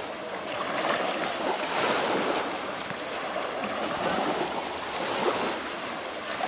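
Sea waves washing onto the beach: a steady wash of water that swells and eases.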